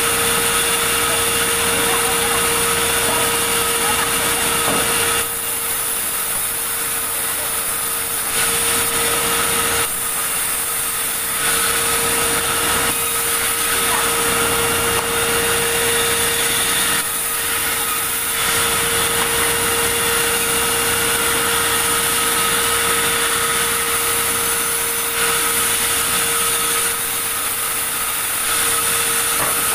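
Sawmill saw running steadily with a constant whine, its level dropping a little for a second or two several times.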